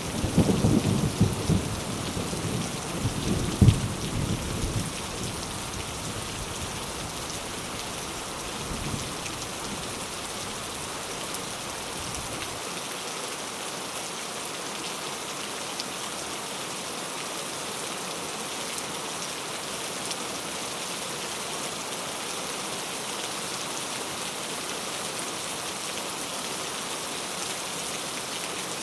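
Steady rain with thunder rumbling at first, a sharp clap about four seconds in. The rumble dies away over the next several seconds, leaving only the even hiss of the rain.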